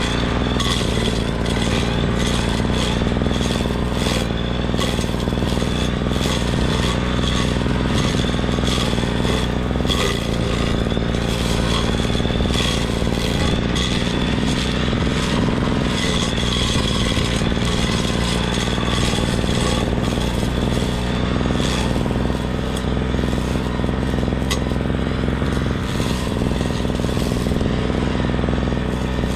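A grass-cutting machine's engine running steadily at constant speed, with frequent rattling and scraping from the cutting.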